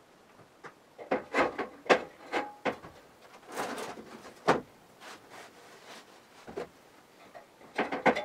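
Hollow wooden knocks and clatter, with a short scrape in the middle, as old wood is handled in the barn loft. There is a run of knocks early, a scrape followed by a hard knock around the middle, and another burst of clatter near the end.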